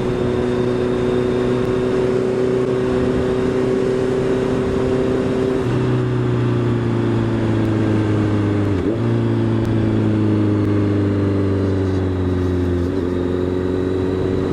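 Honda CB650F inline-four motorcycle engine running at steady, fairly low revs, heard from the rider's seat under wind noise. Its pitch sags slowly, with brief dips about six, nine and thirteen seconds in.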